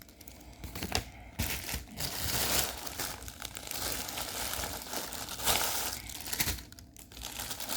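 Crinkling and rustling of packaging being handled and unpacked, in irregular spells.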